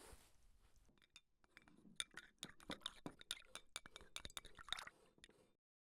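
A rapid, irregular run of light taps and clicks, some with a brief ringing, from about two seconds in until about five seconds; then the sound cuts off abruptly.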